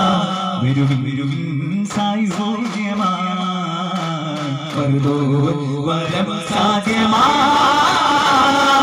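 Duff muttu: a male voice singing a chant-like devotional song over a PA, holding long wavering notes, with daf frame drums struck now and then across it.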